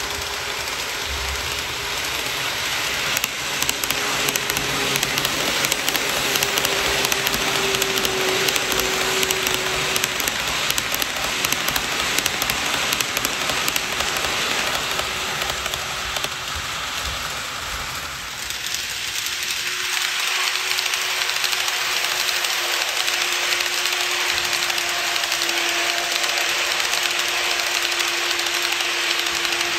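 KATO E235 series 1000 N-gauge model train running along the track: a steady rolling hiss of small metal wheels on rail under a constant motor hum, with fast clicking. About eighteen seconds in the clicking fades, leaving a smoother hum and hiss.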